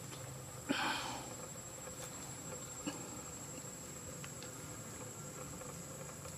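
Steady high-pitched insect drone over outdoor ambience. A brief, sharp, louder noise comes less than a second in, and a faint click comes about three seconds in.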